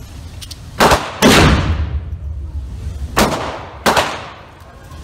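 Four handgun shots in an indoor shooting range, each a sharp report ringing off the walls, coming in two pairs: one pair about a second in and another about three seconds in. The second shot is the loudest, with the longest echo.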